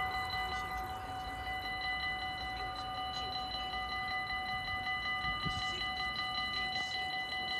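Electronic warning bells of a Dutch level crossing ringing in rapid, even strokes while the barriers lift: the train has passed and the crossing is reopening.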